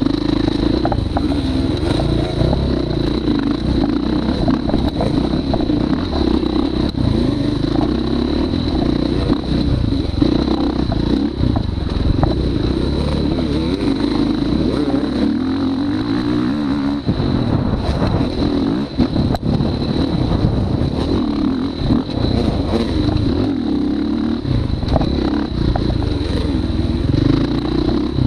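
Motorcycle engine running under load while being ridden, its pitch rising and falling as the throttle opens and closes, heard close up from a camera strapped to the rider's chest.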